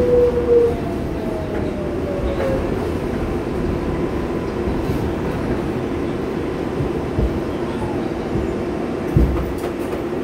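R142A subway car running on the rails: a steady rumble of wheels on track, with a falling whine that fades out within the first second or so. A single thump about nine seconds in.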